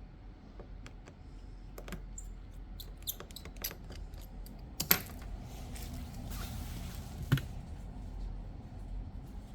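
Small repair tools tapping and clicking against a disassembled smartphone's parts. Two sharper clicks come about five and seven seconds in, with a short scraping hiss between them.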